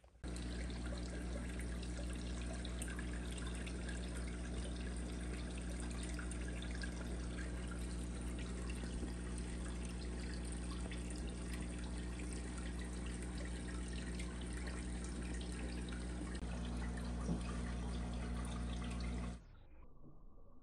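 Water trickling and running in an aquarium, over a steady low hum; the sound starts abruptly and cuts off about nineteen seconds in.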